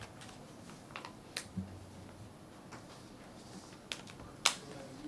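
A few scattered sharp clicks and taps, the loudest near the end, with a brief low thump about a second and a half in, over quiet room background.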